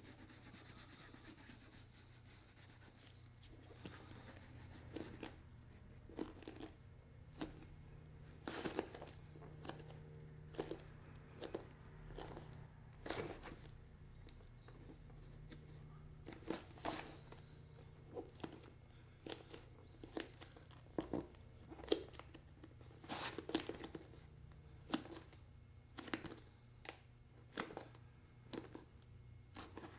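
Hands working a leather boot and a welt strip: irregular small crackles, snaps and rustles of leather being pressed and handled, one or two a second, over a faint low hum.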